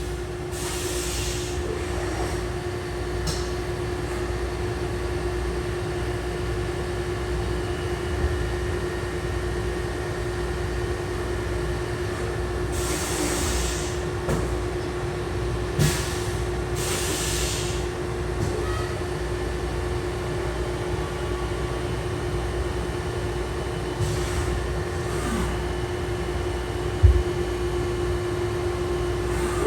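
HAAS UMC-500 5-axis CNC machining center running, a steady mechanical hum with a constant tone and low rumble, broken by several short bursts of hissing.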